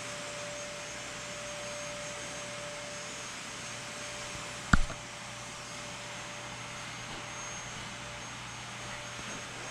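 Steady fan-like whooshing noise with a faint steady whine, and one sharp knock a little under halfway through, the loudest sound.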